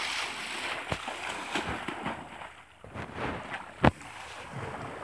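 Pond water splashing and sloshing as a man plunges in from the bank and wades through it. A sharp knock comes about a second in and a louder one about four seconds in.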